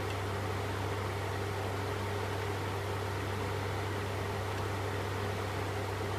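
Steady low hum with an even hiss underneath, unchanging throughout, with no beeps or clicks.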